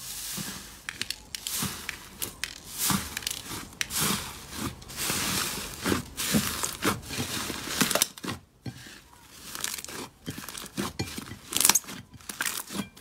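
Thick, soft slime being pressed and kneaded by hand, giving a squelching hiss with many small sharp pops and crackles.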